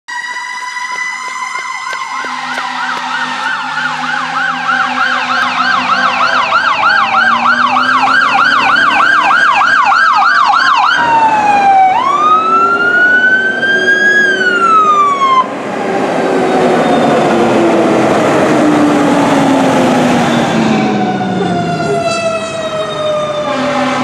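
Emergency vehicle sirens: an electronic siren on a fast yelp for several seconds, then one slow wail sweep down and back up as an emergency SUV passes. After that a fire engine's Federal Q2B mechanical siren sounds rough and winds down in pitch, and another siren tone starts near the end.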